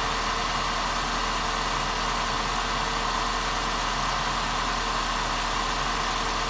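Suzuki Liana's 1.6-litre M16A inline-four petrol engine idling steadily, with no change in speed.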